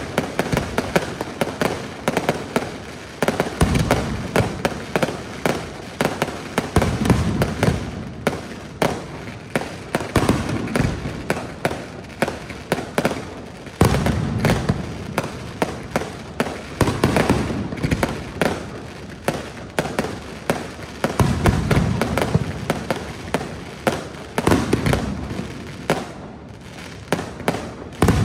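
Fireworks display: a rapid, unbroken string of sharp bangs and pops, with a heavier deep boom about every three to four seconds.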